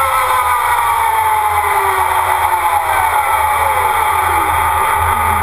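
Electric Formula Student race car's drive motor whining, its several tones falling steadily in pitch as the car slows to a stop, over a steady rushing wind and tyre noise.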